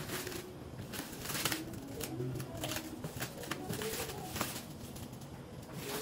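Black plastic stretch wrap crinkling and rustling in irregular crackles as it is cut with scissors and pulled off a cardboard box.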